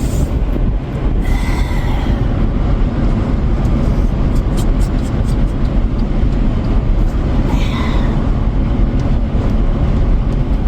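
Steady low rumble of a vehicle in motion, with a few faint ticks around the middle.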